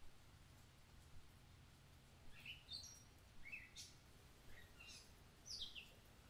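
Faint bird chirps: a string of short, quick calls from about two seconds in, over a low steady hum.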